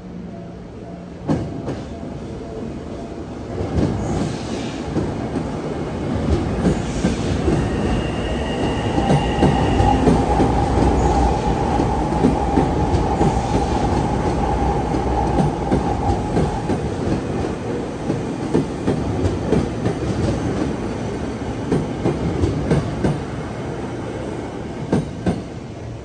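Electric commuter train passing over the level crossing on the depot branch track. Its wheels clack over rail joints, and a steady wheel squeal sounds through the middle of the pass from the flanges on the curve. The sound swells a few seconds in and fades near the end.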